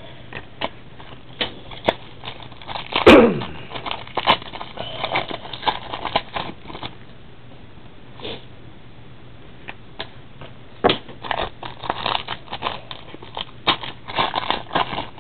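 Trading cards and their packaging being handled: scattered rustling and light clicks, with one louder swishing rip about three seconds in and a busier stretch of shuffling near the end.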